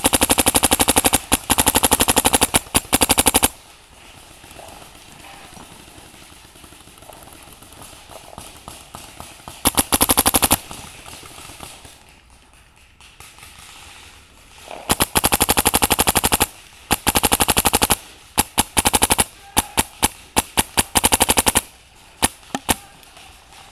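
Macdev Clone GTi electronic paintball marker firing rapid strings of shots: a long burst of about three and a half seconds, a short string about ten seconds in, then several more quick strings in the last third.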